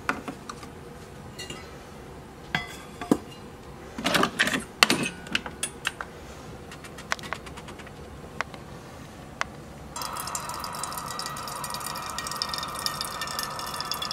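Keurig single-serve coffee maker being loaded: clicks and clacks as a K-cup pod is dropped in and the lid is pressed shut, loudest about four seconds in. About ten seconds in the brewer starts running with a steady whirring hiss as it pumps hot water through the pod.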